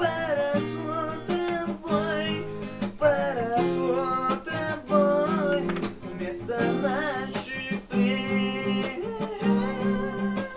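Instrumental passage of a song: a strummed acoustic guitar keeps a steady rhythm while a melody line runs over it.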